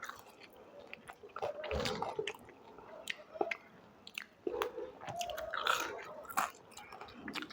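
A person biting and chewing Indo-Chinese street food close to the microphone, with many short, sharp clicks and crunches scattered irregularly through the chewing.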